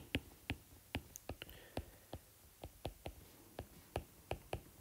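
Stylus tip tapping and scratching on a tablet's glass screen while handwriting, a run of faint, irregular clicks about three to four a second.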